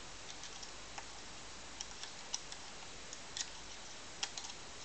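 Scattered faint clicks and small taps as laptop RAM modules are worked loose from their spring-clip slots, over a steady low hiss.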